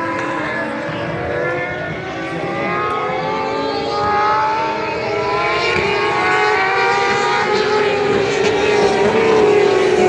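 Several Turismo Carretera race car engines running hard at once, their notes overlapping, some slowly falling in pitch while others rise, and getting a little louder toward the end as the cars come by.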